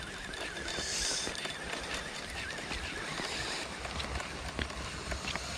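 Spinning reel being cranked fast to bring a hooked whiting in toward the beach, with a faint wavering whine for the first couple of seconds and a few small clicks, over a steady hiss and low rumble.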